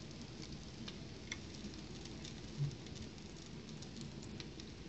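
Jalebi batter frying in hot oil in a pan: a faint steady sizzle with scattered small pops and crackles, and a short dull thump about two and a half seconds in.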